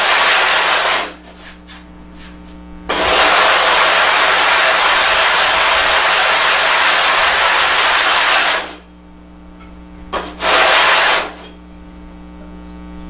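Sharpening stone being flattened: rubbed back and forth over loose dry abrasive grit on a glass plate, a loud gritty scraping. It comes in three spells, stopping about a second in, running again from about three to nearly nine seconds, and once more briefly around eleven seconds, with only a low electrical hum in the pauses.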